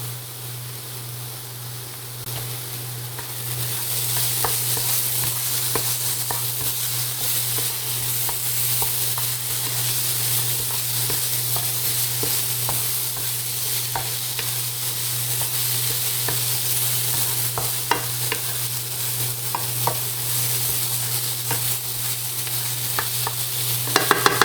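Onions and minced garlic sizzling in oil in a flip pan on an induction cooktop, with a utensil clicking against the pan now and then as they are stirred. The sizzle gets louder about three seconds in, over a steady low hum.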